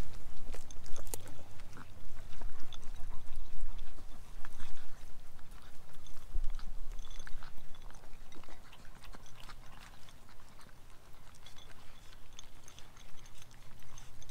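Four-week-old Great Pyrenees puppies eating dry puppy kibble from small bowls: a busy run of irregular little clicks of mouths, kibble and bowls, the pups gobbling the food down rather than crunching it.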